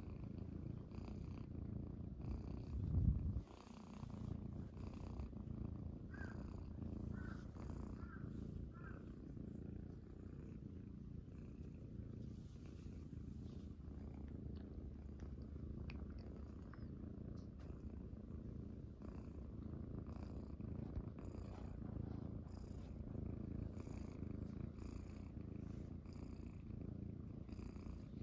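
Munchkin cat purring steadily right against the microphone, with one low thump about three seconds in.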